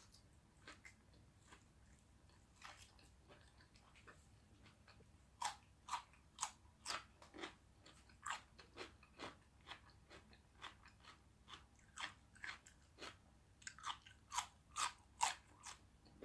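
Close-up chewing of a mouthful of beef and kimchi, with crisp crunches. The first five seconds are faint; then the crunches come about twice a second.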